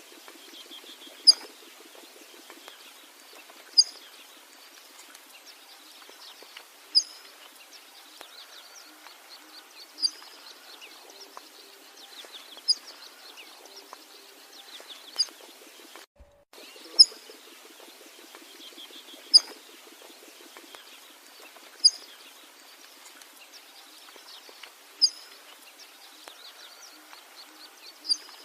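Birds calling: one sharp, high note repeated about every two and a half to three seconds over softer, fainter chirping, with a brief dropout about sixteen seconds in.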